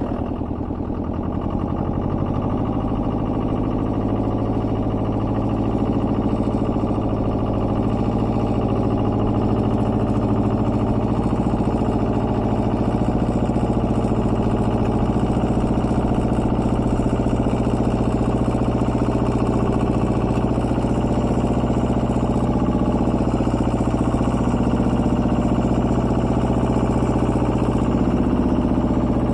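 Small tractor engine running steadily, hauling a subsoiler (soil loosener) through the ground. It picks up a little in the first couple of seconds, then holds an even drone.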